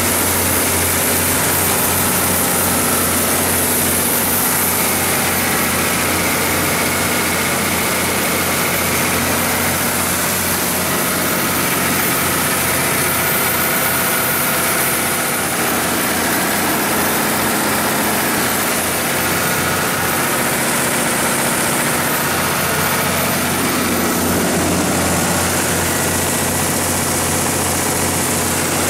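John Deere 6090HF485 9.0 L inline-six diesel engine of a Stateline 270 kW standby generator set, running steadily at its constant generator speed.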